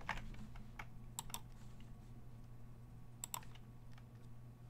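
A few faint, sharp clicks of computer input, several in quick pairs about a second or two apart, over a low steady hum.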